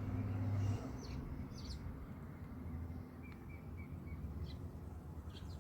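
House sparrows chirping in short, scattered high notes, with a quick run of notes about three seconds in. A steady low hum underneath cuts off just under a second in.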